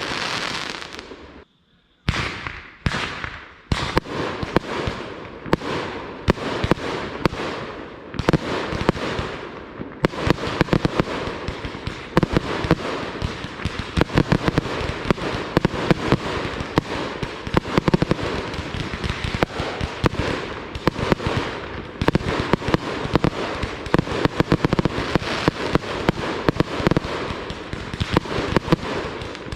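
Consumer fireworks going off: separate bangs with crackling tails at first, then from about a third of the way in a dense, continuous barrage of rapid pops and crackles. The sound drops out briefly near the start.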